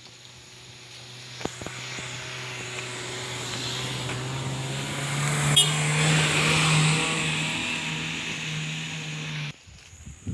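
A motor vehicle's engine running with a steady hum that grows louder and rises slightly in pitch over the first six seconds, as if approaching, then cuts off abruptly near the end.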